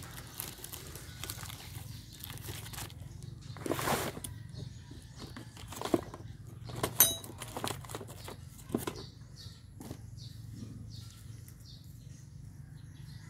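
Outdoor ambience of scattered short knocks and clicks, the sharpest about seven seconds in, over a low steady hum, with faint bird chirps repeating in the second half.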